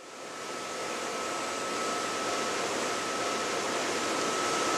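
Steady machine-shop noise of CNC machines running: an even hiss with one steady high whine, rising in over the first second.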